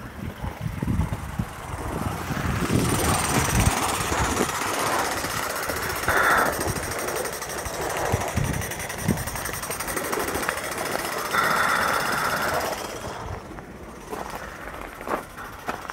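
Gas-fired gauge 1 live steam tank locomotive running on garden railway track, its steam exhaust making a rough, hissing sound that drops away about thirteen seconds in.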